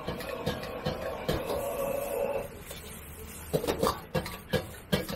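Gas wok burner running with a steady hum while a steel ladle scrapes and taps the wok as fried rice is stir-fried. About halfway the burner cuts off, and the ladle then clanks sharply against the wok about five times.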